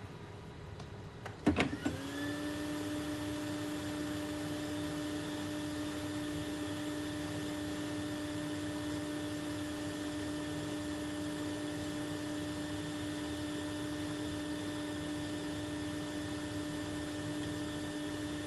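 A small electric blower motor switched on with a click about a second and a half in, quickly rising in pitch and then running with a steady hum.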